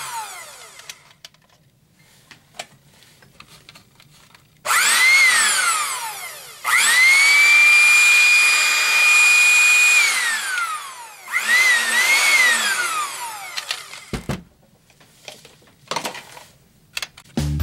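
Waring Ambassador blender's brushed motor run in bursts, a whine that rises in pitch as it spins up and falls as it winds down. It winds down at the start, gives a short pulse about five seconds in, runs for about three seconds at steady speed, then winds down and gives a quick double pulse near the end.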